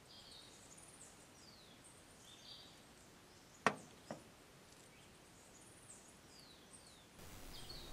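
Faint birdsong of short high chirps and downward-sliding notes over quiet outdoor background. A little over three and a half seconds in come two sharp clicks about half a second apart, the loudest sounds.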